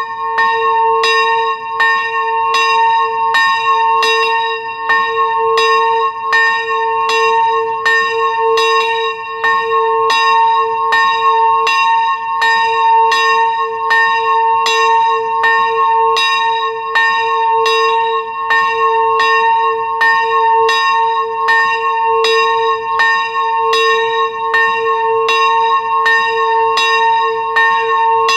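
A single swinging church bell, strike note given as a2, ringing with its clapper striking in a steady, even rhythm of about one and a half strokes a second, each stroke ringing on into the next.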